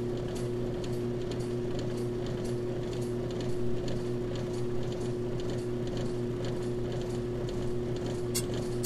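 Ammco brake lathe running steadily with a brake drum spinning on its arbor, the cutter bit just touching the drum's surface and giving a faint, regular ticking scrape: the sign that the bit has reached the drum for the scratch test.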